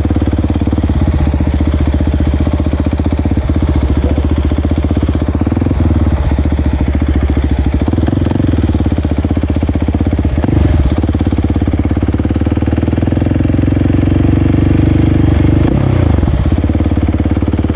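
Motorcycle engine running steadily while riding, its pitch dipping briefly and picking up again a few times.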